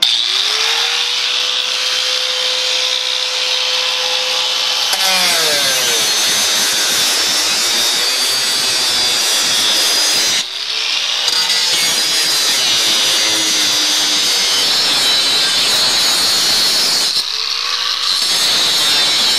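Angle grinder with a thin cutoff wheel spinning up with a rising whine, then cutting through the rusted sheet-metal floor pan, its pitch dropping as the wheel bites into the metal. The cut eases off briefly about ten seconds in and again near the end, where the grinder's whine comes back up to speed before it bites again.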